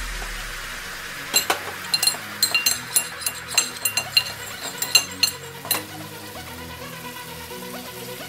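Metal spoon stirring a thin cornstarch slurry in a ceramic bowl, clinking against the bowl's sides in a quick, uneven run of sharp, ringing taps, several a second. The clinking starts about a second in and stops about six seconds in.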